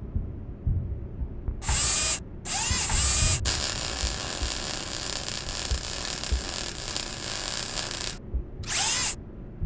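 Tool sound effects for a repair: two short mechanical whirs like a power tool, then about five seconds of steady hiss of welding sparks, and another short whir near the end.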